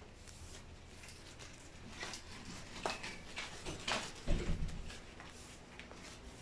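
Plastic wrapping on bundled diaper packs crinkling in a few short rustles as they are handled, with a dull thump a little past four seconds in.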